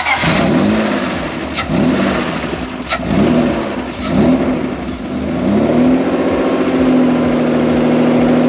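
A BMW M50B20 2.0-litre straight-six engine has just fired up and runs naturally aspirated, with the supercharger not yet driven. Its revs rise and fall unevenly several times, then settle into a steady idle about six seconds in. Two sharp clicks sound in the first few seconds.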